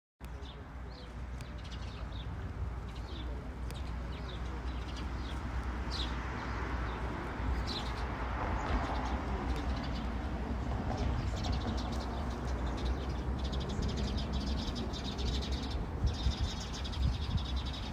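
Sea waves washing on a beach, swelling about halfway through, with wind rumbling on the microphone. Short high bird chirps sound over it, turning into a fast high chatter in the second half.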